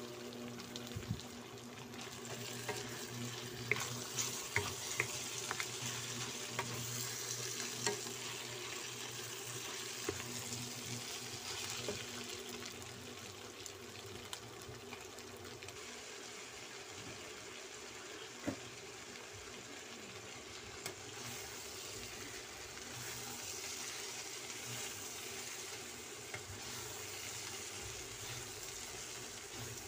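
Meat and vegetables sizzling as they are stir-fried in a nonstick wok, a steady frying hiss with a few sharp clicks of the spatula knocking against the pan.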